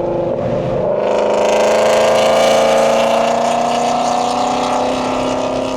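Car engine accelerating, its pitch climbing slowly for about four seconds and then holding steady.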